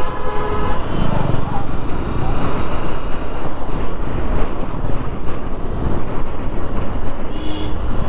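Steady rush of wind and road noise on the move by motorcycle. A vehicle horn toots in the first second, and a shorter tone sounds near the end.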